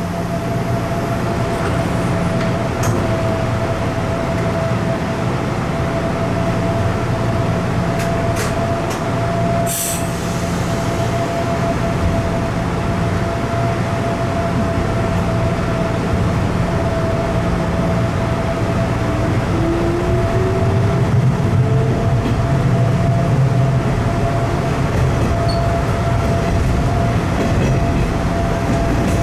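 Hanshin Railway red-bodied electric train heard from the driver's cab while running: a steady low rumble and hum of wheels and motors with a thin constant tone over it. A few sharp clicks come about a third of the way in, and a whine rises in pitch about two-thirds through as the rumble grows louder.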